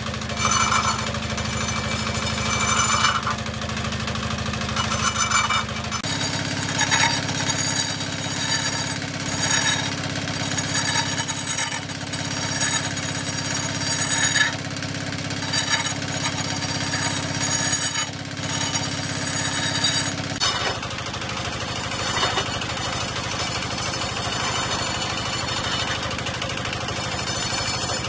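Homemade wood lathe running steadily while a long-handled hand tool rough-turns a large spinning log. The tool scrapes and chatters against the uneven wood in repeated bursts about every second.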